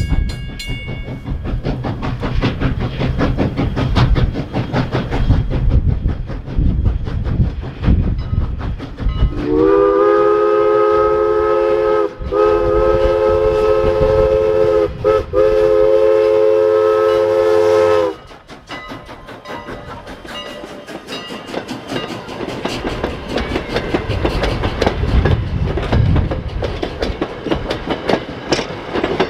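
Steam locomotive Canadian National 89 running past with its train: heavy rumble and rapid clicking of wheels over rail joints. About nine seconds in, its chime steam whistle sounds long, long, short, long, the grade-crossing signal, sliding up in pitch as each blast opens. After the whistle the cars keep clicking along the rails.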